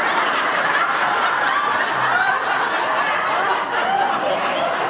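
A large audience laughing together, many voices overlapping into one continuous mass of laughter.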